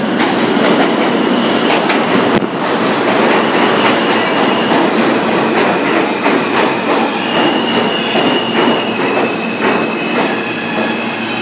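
New York City Subway train pulling into an underground station, its wheels clacking over rail joints under a dense rumble. A high, steady squeal from the wheels and brakes comes in about three seconds in as the train slows along the platform.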